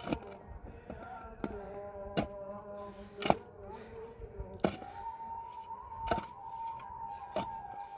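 Sharp knocks of a hand tool striking hard ground or stone, about one every second or so, with a steady humming tone running underneath.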